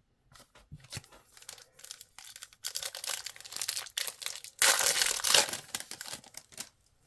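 Wrapper of a 2022 Panini Chronicles Basketball trading-card pack crinkling and tearing as it is ripped open by hand, loudest in the second half and stopping shortly before the end.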